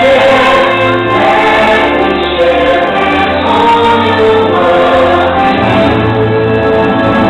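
Fireworks-show soundtrack music: a choir singing held notes over an orchestra, loud and steady.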